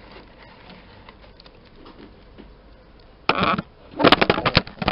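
Handling noise from a hand gripping and moving the recording phone or camera right at its microphone. After a few quiet seconds there is a loud rustling scrape about three seconds in, then a quick run of scratchy clicks and rubs near the end.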